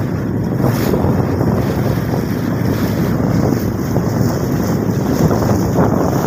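Loud, steady wind buffeting the microphone on a boat moving across a lake, with water rushing along the hull.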